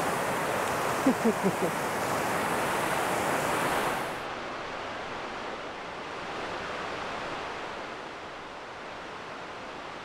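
Rushing mountain creek, a steady loud wash of water, with four short quick pitched notes about a second in. About four seconds in it cuts off sharply to a quieter, steady outdoor hush.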